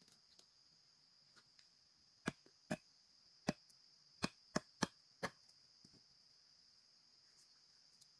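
Seven sharp knocks, irregularly spaced, between about two and five and a half seconds in, over a steady high drone of crickets.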